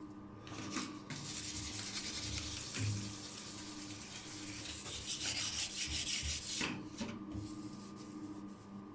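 Sandpaper rubbed by hand over dried repair filler on a bathtub's enamel, a steady scratchy sanding noise that stops about seven seconds in, followed by fainter rubbing.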